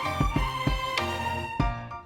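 Background music: melodic instrumental with a regular beat.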